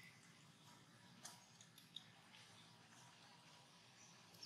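Near silence: faint outdoor ambience with a couple of faint clicks.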